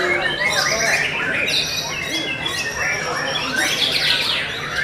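White-rumped shamas (murai batu) singing, a dense run of overlapping whistles, trills and rising and falling notes with no break.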